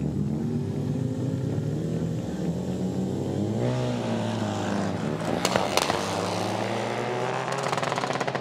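Custom sprint motorcycle engine running and being revved at the start line of a drag sprint, with the revs rising and wavering about halfway through. A few sharp exhaust cracks follow soon after, and a rapid crackle comes near the end.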